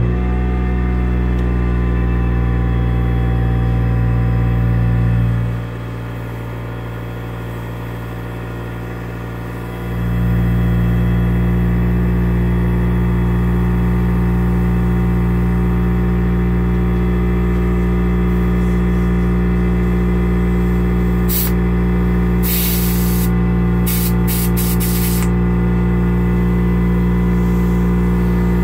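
Small airbrush compressor running with a steady electric hum; it drops quieter for a few seconds early on. About two-thirds of the way through, several short hisses of escaping air cut in over it.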